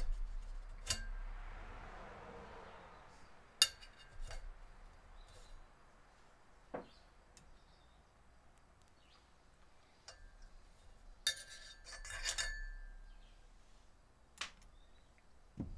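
Small metal motorcycle fork parts (bushings, washer and seal) clinking against each other and the fork's inner tube as they are slid off and handled. The clicks are scattered and sharp, the sharpest about three and a half seconds in, with a short run of ringing metal clinks around eleven to twelve seconds in.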